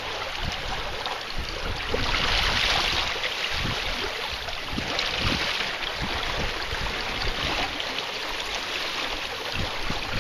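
Water rushing and splashing along the hull and outrigger float of a sailing canoe under way, swelling louder twice. Wind buffets the microphone with low thumps throughout.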